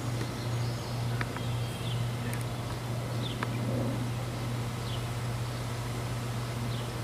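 Outdoor background: a steady low hum, with faint short high chirps every second or so and a few light clicks.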